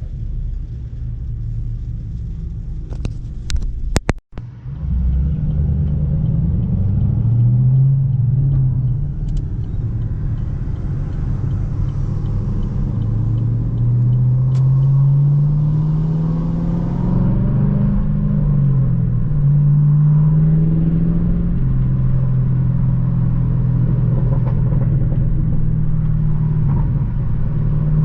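A car engine drones under way, its pitch climbing and dropping back a few times as it accelerates and shifts, then holding steady at cruise. A few sharp clicks and a brief cut-out in the sound come about four seconds in.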